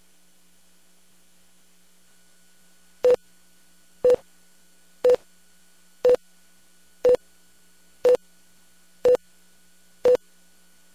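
Countdown slate beeps: eight short beeps of the same tone, one each second, starting about three seconds in and counting down to the next spot. A faint steady hum runs underneath.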